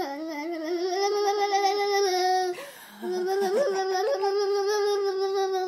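A baby holds a long, steady 'aah' voice sound while a hand taps rapidly under her chin, chopping the tone into a fast wobble. There are two long held notes with a short break between them about halfway through.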